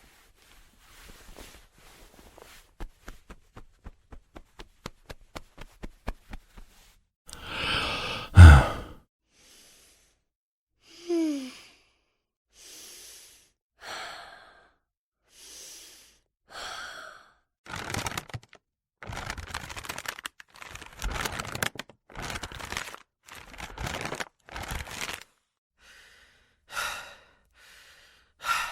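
A run of human breath sounds: after a quick series of clicks that speeds up, a loud sigh, then breaths in and out that grow quicker into panting, with sharp gasps near the end. A short falling squeak is heard about eleven seconds in.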